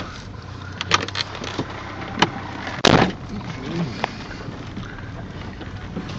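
Car running slowly over a rough, stony dirt track, heard from inside the cabin: a steady low engine hum with sharp knocks and clatter as the wheels and suspension hit stones, the loudest knock about three seconds in.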